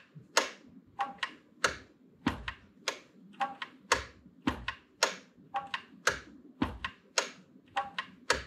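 Buttons on a Roland CR-78 drum machine being pressed over and over as bass drum steps are entered into a pattern. Each press gives a sharp click, about two or three a second, and several come with a low thump.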